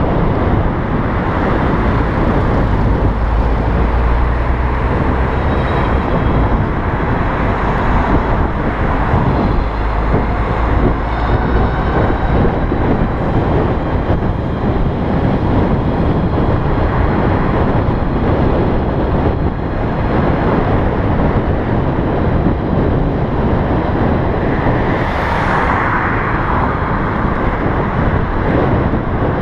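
Steady rush of road and traffic noise, heavy in the lows, heard while riding an electric bicycle through traffic, with a brief louder hiss about 25 seconds in.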